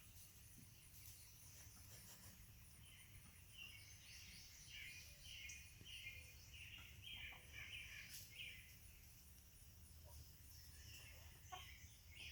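Faint bird chirps, repeated short calls coming in clusters from a few seconds in, over a steady, faint, high pulsing insect trill.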